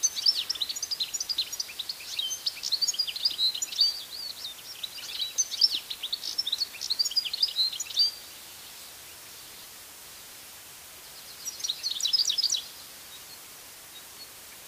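European goldfinch singing: a rapid twittering run of high notes for about eight seconds, then after a pause a short second phrase about twelve seconds in.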